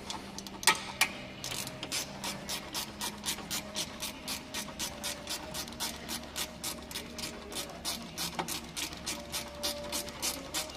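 Steady, regular mechanical ticking, about three ticks a second.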